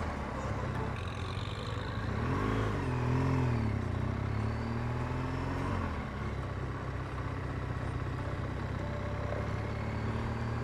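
BMW R 1200 GS motorcycle's boxer-twin engine running under way, heard from the rider's seat. Its pitch rises and falls between about two and six seconds in, then holds steady.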